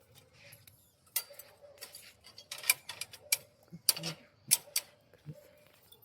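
Irregular sharp metallic clicks and taps, about a dozen, over a faint steady hum, from metalwork on steel.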